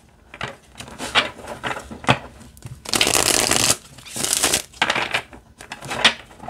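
A deck of oracle cards being riffle-shuffled by hand: the cards' edges whir together in two longer riffles, about three and four and a half seconds in, with short snaps and taps of the cards between.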